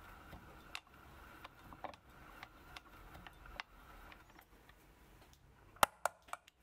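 Faint, irregular clicks of a small hand tool working the thin steel pivot wire held in a watchmaker's lathe collet, with three sharper metallic clicks in quick succession near the end.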